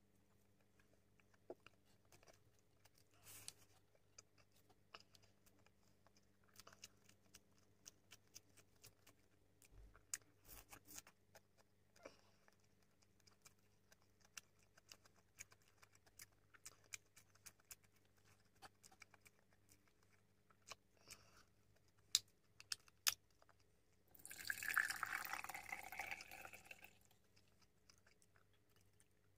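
Close-miked eating: soft chewing with scattered short mouth clicks and smacks. About 24 s in, juice is poured from a can into a drinking glass, a splashing fill lasting about three seconds.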